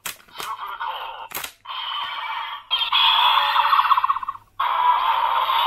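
Bandai DX Dark Z Riser toy's small built-in speaker playing its electronic sound effects, opening with a few sharp plastic clicks as Kaiju Medals are set in and scanned. The sound is thin and tinny, stops and starts a few times, grows louder with a fast flutter about three seconds in, and turns into a continuous looping tune near the end.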